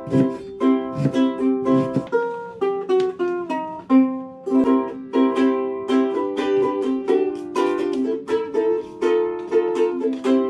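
Background music: a plucked ukulele-style tune with a steady strumming rhythm.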